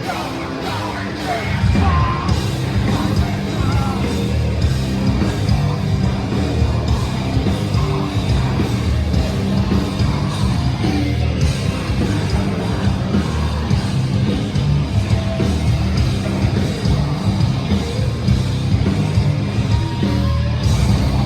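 Live metalcore band playing heavy, distorted guitars, bass and drums with screamed vocals, turning louder about two seconds in.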